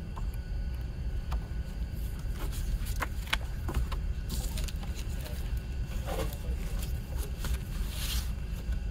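Paper pages of a CD booklet being flipped and handled, with soft rustles and light clicks about 3, 4.5, 6 and 8 seconds in, over a steady low background rumble.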